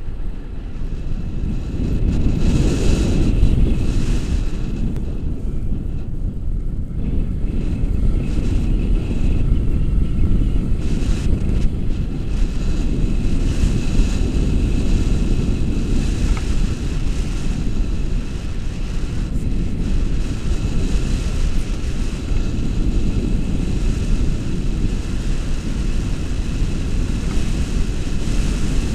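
Wind rushing over the microphone of an action camera carried through the air on a paraglider, a loud, steady, low rumbling buffet.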